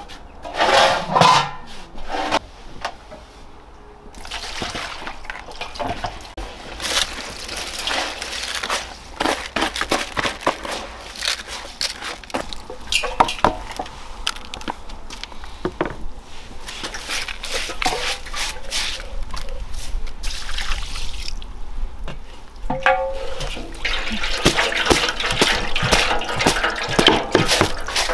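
Water splashing and sloshing in irregular bursts, with a quieter lull a little after two-thirds of the way through.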